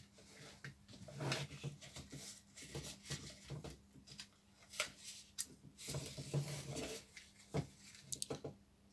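Faint handling sounds: paper rustling with small sharp clicks and taps as the paper wrapping is pulled off a car radio's wiring loom and plastic connector plug.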